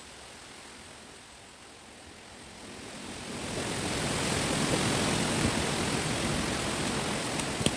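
Wind gusting through a chestnut wood: a soft rush of moving leaves and stems swells about three seconds in to a loud, sustained roar that holds to the end. Two sharp clicks come near the end.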